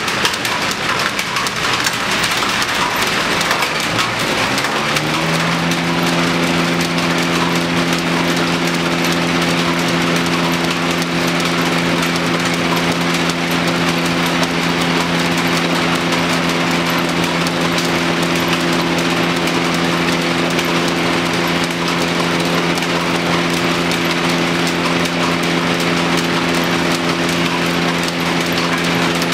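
Belt-driven thickness planer from about 1910 running up to speed. A hum of several pitches rises four to five seconds in, then holds steady over a continuous rushing clatter.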